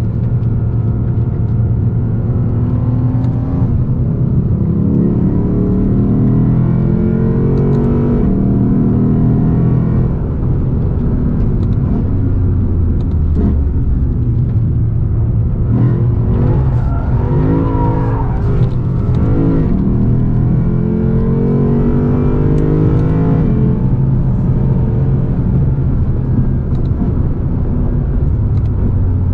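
A 2020 Lexus RC F's 5.0-litre V8, heard from inside the cabin under hard track driving. It climbs in pitch under acceleration and drops back again, several times over.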